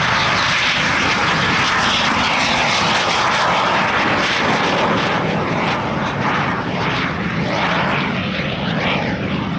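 Aermacchi MB-326 jet trainer's single Viper turbojet running at full takeoff power as the aircraft climbs away just after liftoff: a loud, steady jet noise.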